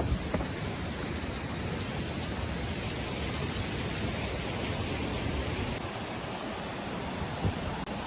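Shallow, rocky river rushing over stones: a steady, even rush of water, with a brief knock near the end.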